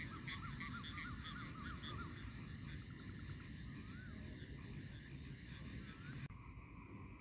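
Night chorus of insects and frogs at the water's edge: a steady, pulsing high insect trill with a quick run of short repeated chirping calls in the first two seconds and a couple more later, over a low rumbling noise. The high trill cuts off abruptly about six seconds in.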